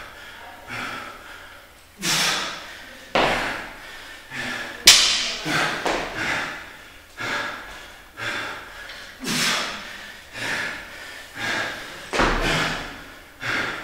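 A lifter's hard breathing and effort sounds with thuds, coming again and again about every second or so, as a plate-loaded barbell is pulled to overhead rep after rep; the sharpest knock comes about five seconds in.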